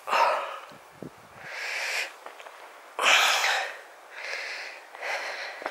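Heavy, rhythmic breathing of a person climbing a steep hillside on foot, about five loud breaths in and out roughly a second apart.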